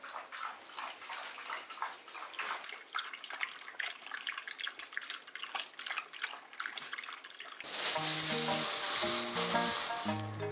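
An Italian greyhound and a whippet eating from stoneware bowls: a quick, irregular run of small crunches and clicks. About 7.5 seconds in, background music with plucked notes takes over.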